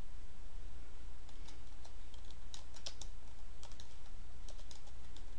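Typing on a computer keyboard: irregular keystrokes beginning about a second in, over a steady low hum.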